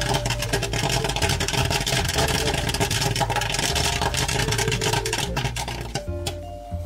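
Popcorn machine kettle popping a batch of corn in oil: a dense, rapid crackle of kernels bursting, thinning out about six seconds in.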